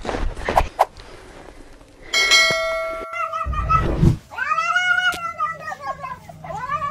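A cat yowling in two long, drawn-out meows, each rising then falling in pitch, the second running on past the end. Before them come a brief bell-like ringing tone and a low thud.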